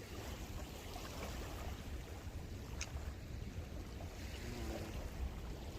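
Steady wash of sea water with a low rumble underneath, and one short high tick about three seconds in.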